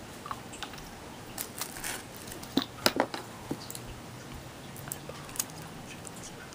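Hands handling small hard objects and packaging: scattered clicks, taps and rustles, with a few sharper clacks about three seconds in.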